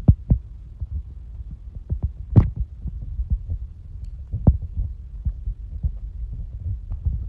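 Firecrackers going off all around on Diwali night: a dense, irregular patter of dull distant booms several times a second, with a sharper, nearer crack about two and a half seconds in and another a couple of seconds later.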